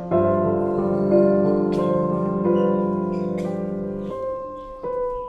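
Background music: slow, calm piano chords with sustained notes, the texture thinning to a single held note near the end.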